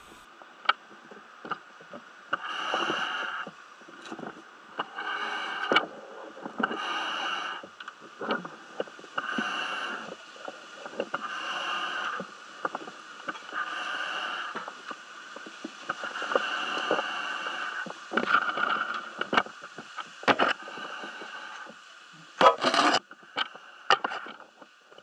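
A diver breathing through the scuba regulator of a full face mask: a hissing rush of air about every two seconds. Short knocks and scrapes of boots and gear against an aluminium ladder fall between the breaths, with a louder burst near the end.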